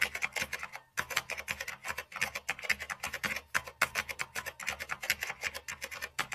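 Typing sound effect: rapid keyboard keystrokes, several a second, with a short pause about a second in.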